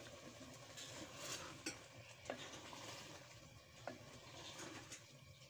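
Wooden spoon stirring cauliflower and green peas in a clay handi, with a few light knocks of the spoon against the pot over a faint sizzle of the frying.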